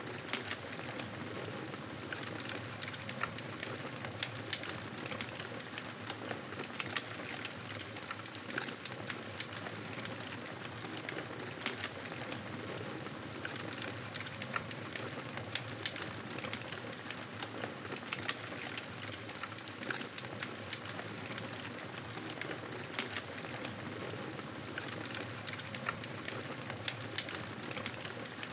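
Bonfire burning, crackling over a steady hiss with frequent small pops and snaps.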